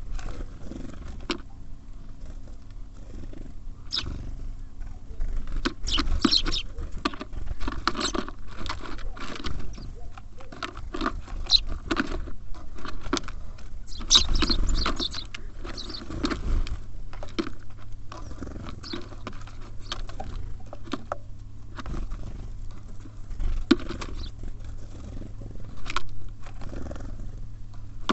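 Small songbirds feeding at a bird feeder: frequent sharp taps and clicks of beaks and feet on the feeder, with short high chirps here and there, over a steady low hum.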